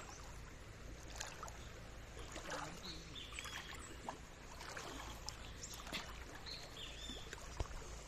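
Faint sloshing and splashing of shallow river water as people wade through it, with a few short splashes standing out.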